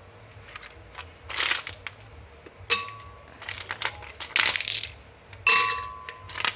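Ice cubes dropped one at a time into a glass blender jar, each landing with a sharp clink and a brief glassy ring; about six drops, spaced roughly a second apart.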